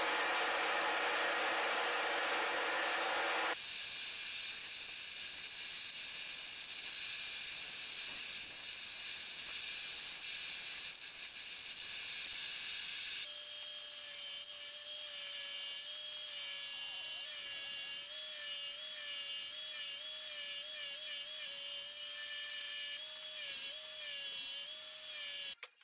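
Bandsaw ripping a laminated wooden paddle blank, the sound changing abruptly about three and a half seconds in. About thirteen seconds in, a handheld power tool takes over, its motor whine wavering a little in pitch as it works the wood.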